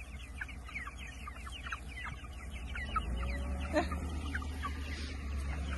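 A flock of young white broiler chickens peeping and chirping as they run through grass after the person feeding them: many short, falling chirps overlapping, over a steady low rumble.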